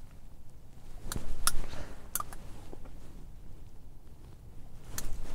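Fishing pliers working a quick-strike rig's hook out of a pike's jaw: about four sharp metal clicks spread over the few seconds, over a low rumble of hand movement.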